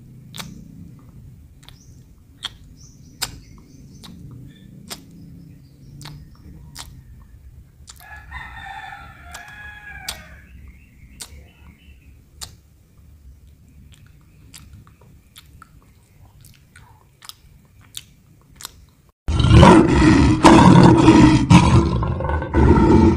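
A lion chewing and licking raw meat, with sharp wet clicks every second or so. A short chirping bird call comes about eight seconds in, and a few seconds before the end a much louder rough sound cuts in suddenly.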